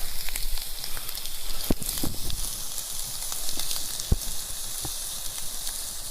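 Food sizzling in a small frying pan over a campfire, a steady hiss broken by a few sharp pops and crackles.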